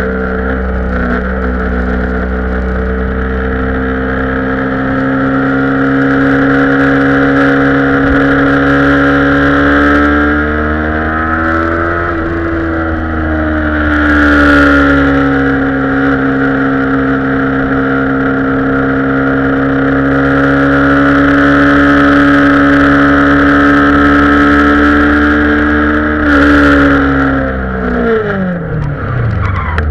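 Kawasaki Ninja 250 parallel-twin engine heard onboard at speed. The revs climb, ease off about twelve seconds in, build again and hold steady, then drop sharply near the end as the throttle closes.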